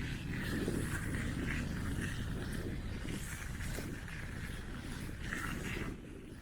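Bicycle ride over a rough sandy track: steady wind rumble on the microphone mixed with the rattle and rolling of the bike, easing a little near the end.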